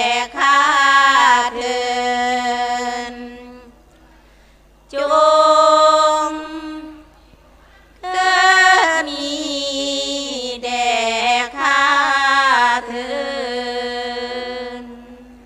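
Women singing a Thai Buddhist sarabhanya chant without accompaniment, in long drawn-out notes with a wavering pitch. Three sung phrases with short pauses between them.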